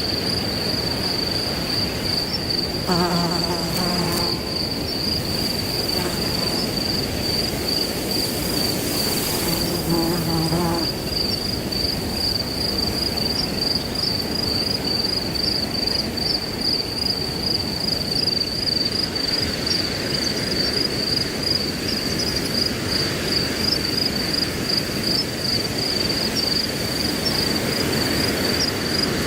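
Crickets chirping in a continuous, finely pulsing high trill over a steady rush of wind through grass. Twice, about three and ten seconds in, a brief low pitched sound lasting about a second.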